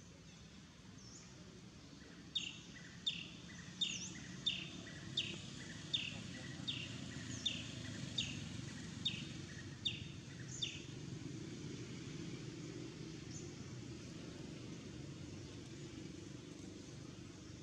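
A bird calling a run of about a dozen short, sharp notes, each falling in pitch, about three every two seconds for some eight seconds, over a steady low background rumble.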